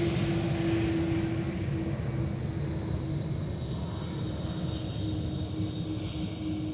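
Airbus A330-200 airliner's jet engines, a steady rushing roar with a held hum tone, slowly fading.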